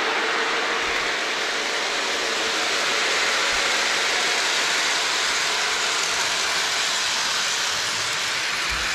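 Lionel model train running on its track: a steady whirring rumble of the motor and metal wheels rolling on the rails, heard close up.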